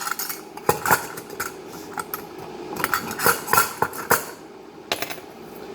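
Kitchenware clattering and clinking: dishes and utensils knocked together in a run of irregular sharp knocks, busiest a little past the middle, as a measuring cup is fetched.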